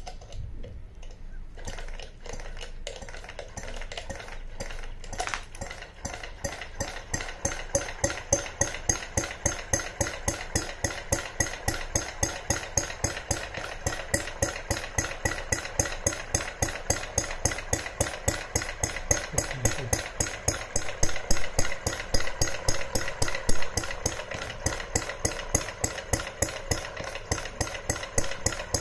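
A scale-model horizontal mill engine, a gas-fuelled single-cylinder stationary engine, running at slow speed. It makes a steady, even train of firing knocks and mechanical clatter, which grows louder about six seconds in.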